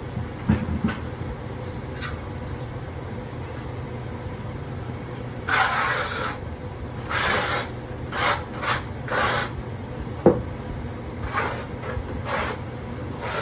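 Steel trowel scraping rapid-setting thinset mortar across the floor in a series of short strokes, with a sharp click near the middle, over a steady low hum.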